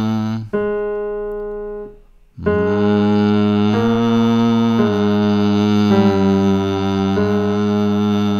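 Closed-mouth humming of a vocal warm-up exercise in chest voice, held notes stepping in pitch about once a second, over piano accompaniment. A piano note is struck about half a second in and dies away, with a short break just before 2.5 s.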